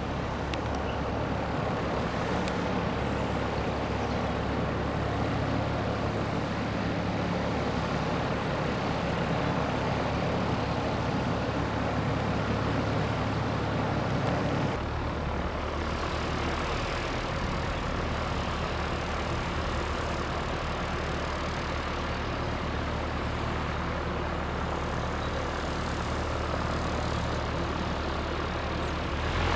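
A steady low engine drone over a constant outdoor noise bed, its tone changing abruptly about halfway through.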